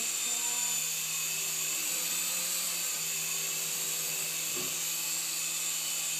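Small remote-control toy helicopter hovering: the steady high whine of its tiny electric motors and spinning rotors, with a low hum beneath.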